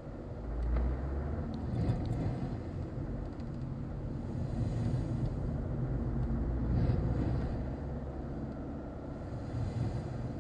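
Car engine and road noise heard inside the cabin, a steady low rumble that swells about a second in as the car pulls away and drives on.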